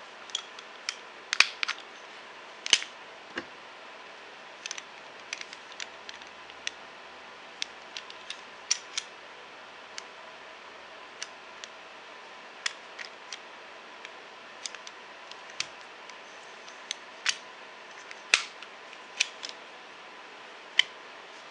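Irregular sharp clicks and clacks of a Leapers UTG Combat D Grip being handled: its spring-loaded bipod legs snapping open and folding back, and the polymer grip knocking against its rail mount. Some clicks are loud, others faint.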